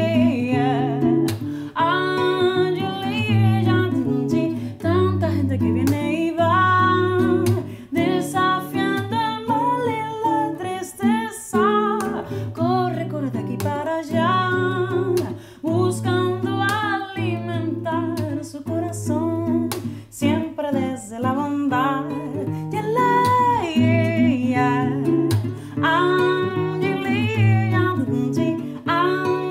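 A woman singing in a small room, accompanying herself on a nylon-string classical guitar plucked in a steady rhythm under the melody.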